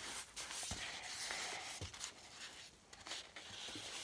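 Faint rubbing and rustling from a handheld camera being moved about, with a few light knocks and clicks.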